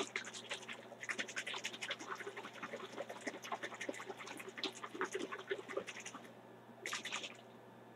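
Capped plastic bottle of pH 9.18 buffer solution shaken by hand, the liquid sloshing and the bottle rattling in quick irregular bursts, mixing the buffer into the water. The shaking stops about six seconds in, with one more brief burst about a second later.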